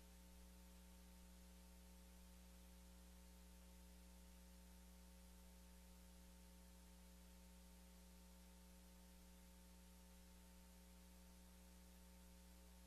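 Near silence: a steady electrical mains hum with faint hiss.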